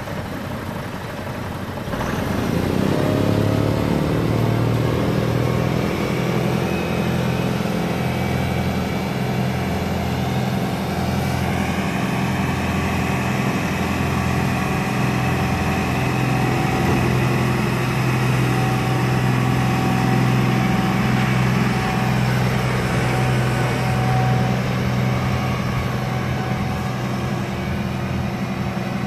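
Massey Ferguson 1736 compact tractor's diesel engine running steadily under load while it drives a front-mounted two-stage snow blower whose auger and impeller throw snow out the chute. The sound gets louder about two seconds in, then holds steady.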